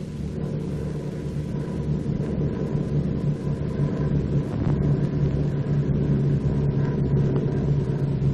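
Steady drone of a twin-engine piston aircraft, growing gradually louder, on an old film soundtrack.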